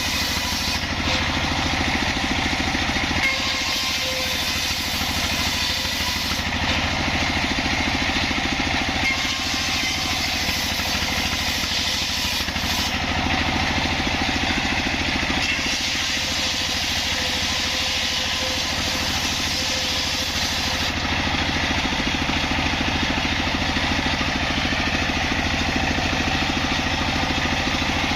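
Engine-driven sawmill running steadily, its saw cutting jackfruit wood, with a high hiss that comes and goes in stretches of a few seconds.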